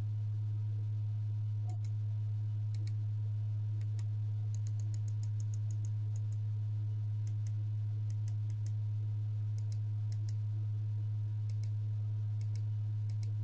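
Buttons on a mini projector's remote clicking as the settings menus are stepped through, in single presses and a quick run of about six a second, over a steady low hum.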